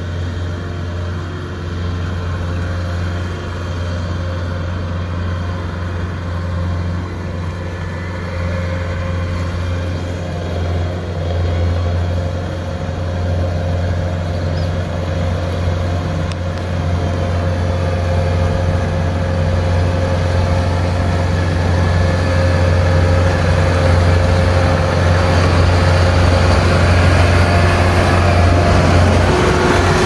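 Crawler-tracked rice combine harvester running steadily with a low drone, growing louder as it comes closer.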